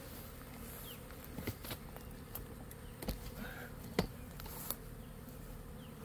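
A honey bee swarm buzzing steadily, with a few sharp clicks and rustles from the leafy branch that holds the cluster being handled. The loudest click comes about four seconds in.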